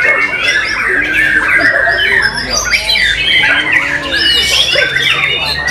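White-rumped shama (murai batu) singing loudly in a fast, unbroken stream of varied whistles, trills and sweeps, with other birds' song overlapping it.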